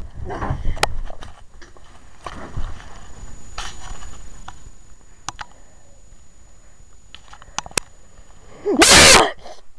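Rustling and sharp clicks of a phone or camera being handled right against the microphone, then a loud, breathy gasp close to the microphone near the end.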